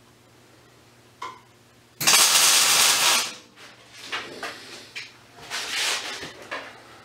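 Workshop handling noises as a welder gets ready to tack steel: a single knock about a second in, then a loud hissing rustle lasting about a second, then scattered rustling and clatter as welding helmet and gloves are put on.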